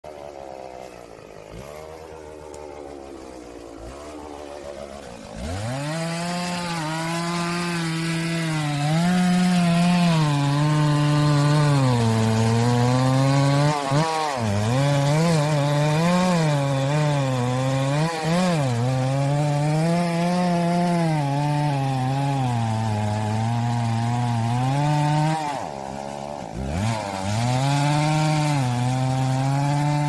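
Chainsaw running quietly at first, then revved hard about five seconds in and held at high speed. Its pitch wavers up and down and drops briefly a few times before climbing again.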